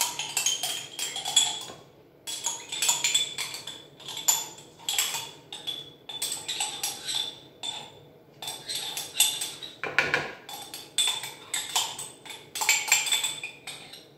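A kitchen utensil clinking and scraping against a mixing bowl and yogurt pot in irregular bursts of short clicks, as plain yogurt is spooned into eggs and mixed in.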